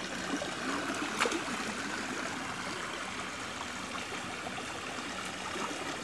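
A small woodland stream flowing and trickling over rocks, a steady rush of water, with one brief tap about a second in.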